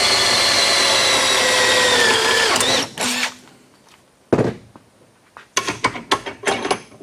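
Cordless drill boring through a steel bracket held in a bench vise, its whine sinking slightly in pitch before it stops about two and a half seconds in. Then scattered metal clicks and knocks as the bracket is handled in the vise.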